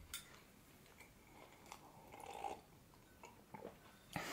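Faint close-up chewing of soft sponge cupcake, with small wet mouth clicks. Near the end comes a short, louder sip of tea from a mug.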